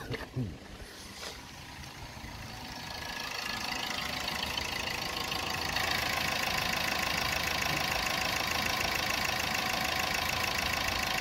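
Opel 1.3 CDTI A13DTE four-cylinder turbodiesel idling with the usual diesel clatter. It grows louder over the first six seconds, then runs steady; a few sharp clicks come right at the start.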